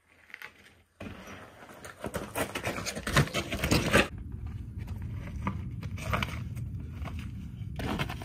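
Mountain unicycle tyre crunching and scraping over rock and gravel as the rider passes close by, with many sharp clicks of stones, loudest about three to four seconds in.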